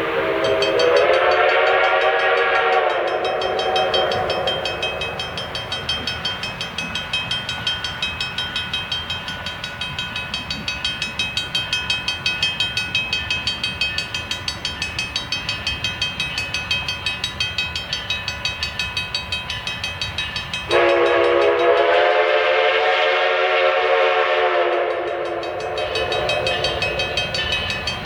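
Ten-wheeler steam locomotive 152 sounding a long chime whistle blast, then working with a steady run of exhaust beats, then a second long whistle blast about 21 seconds in.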